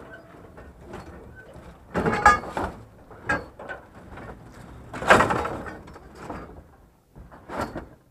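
Scrap metal and chain-link fencing being shifted around in a pickup truck bed, rattling and scraping. There are two louder clattering bursts, about two seconds in and about five seconds in, and a smaller one near the end.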